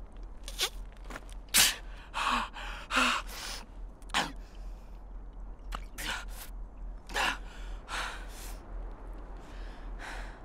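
A man gasping and grunting in pain: a run of short, sharp breaths, some with a voiced groan.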